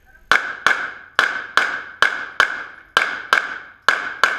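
Ten pistol shots fired as five double taps, the two shots of each pair less than half a second apart, each shot ringing and echoing off the walls of an indoor range.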